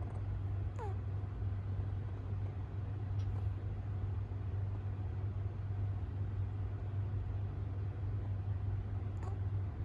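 A steady low hum with no rhythm, plus a faint short falling squeak about a second in.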